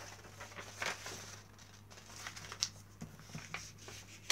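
A square sheet of paper rustling and crinkling faintly as it is folded along its diagonal and the crease pressed flat by hand, with a few small scattered ticks of paper.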